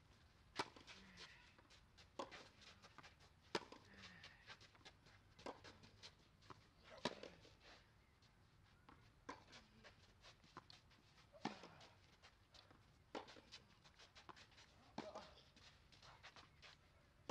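A tennis rally: sharp pops of racket strings striking the ball every second or two, with softer knocks between them.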